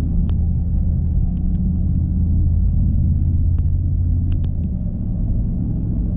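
Harley-Davidson V-twin motorcycle engine running under way, a steady low rumble with a few faint clicks; its deepest note drops back a little about five seconds in.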